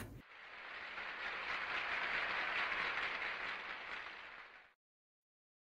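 Applause sound effect, a crowd clapping as a 'well done' reward cue. It swells in, holds, then fades out over about four and a half seconds.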